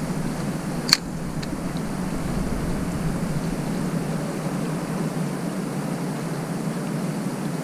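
Steady rushing noise of wind and flowing river water. A single sharp click comes about a second in, followed by two fainter ticks.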